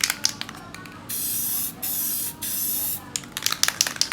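Aerosol spray paint can: rapid rattling clicks of the can being shaken, then, about a second in, three short sprays of hiss in quick succession, then more rattling.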